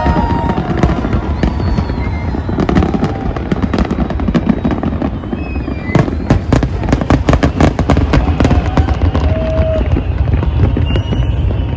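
Aerial fireworks display: a continuous run of bangs and crackling that comes thickest about halfway through, over a steady low rumble.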